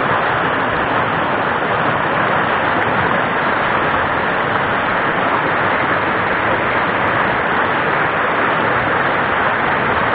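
Whitewater rapids of a rocky mountain stream, a loud, steady rush of water.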